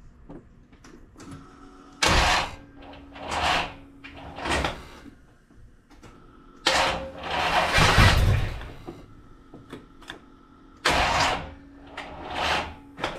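Small-block Chevy's brand-new starter being cranked in six short, rough bursts, the longest about two seconds, without the engine turning over properly. The starter is binding in the flywheel and needs shimming.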